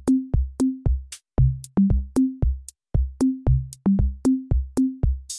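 Background music with a steady electronic drum-machine beat: short pitched bass hits and sharp clicks, about three to four a second, with a cymbal-like crash near the end.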